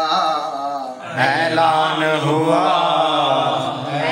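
Unaccompanied man's voice chanting a long, wavering, drawn-out phrase of an Urdu devotional poem, with a short breath about a second in before the line resumes.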